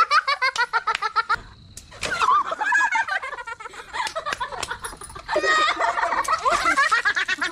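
Children laughing and squealing in repeated bursts, with a brief break about a second and a half in.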